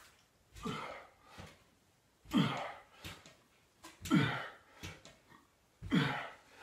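A man's hard, strained exhales with a voiced grunt as he pulls himself up on a pull-up bar, about one every two seconds, each grunt dropping in pitch.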